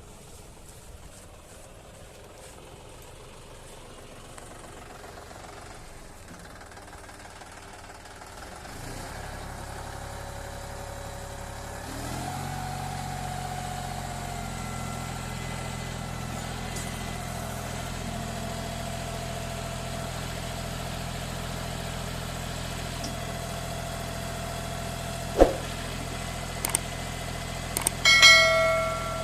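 John Deere 5310 tractor's diesel engine running, growing louder about nine and twelve seconds in and then holding steady, with a whine riding on it. A sharp knock comes near the end, then a brief ringing metallic clank.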